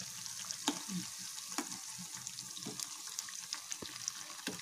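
Potato smileys deep-frying in hot oil: a steady sizzle with fine crackling. A few sharper clicks come from the steel perforated skimmer knocking the pan as the smileys are turned over.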